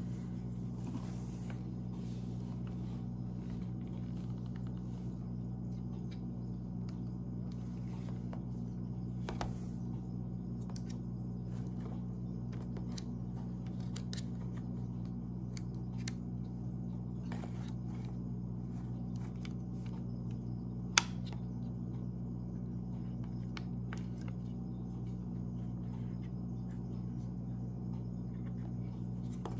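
Scattered plastic clicks and ticks of a black mini tripod being handled, its grip and legs worked and snapped, with one sharp click about two-thirds of the way through standing out as the loudest. A steady low hum runs underneath.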